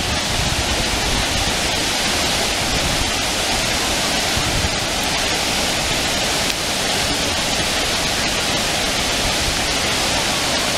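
Water pouring over a low river weir and churning into foam below: a loud, steady rush.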